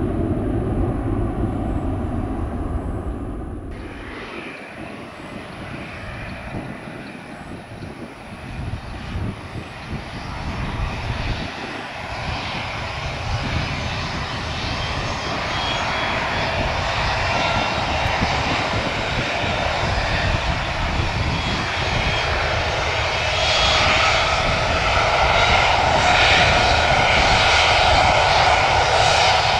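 Jet airliner's engines at takeoff thrust, growing steadily louder from about eight seconds in, with a high whine over the engine noise.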